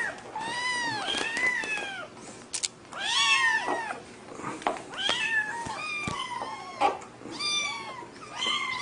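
Several kittens meowing over and over: high, thin arching calls, about one or two a second, some overlapping one another.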